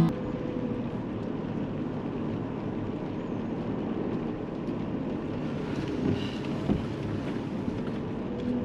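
Toyota 4Runner running and creeping slowly up wet slickrock, heard from inside the cabin as a steady low rumble.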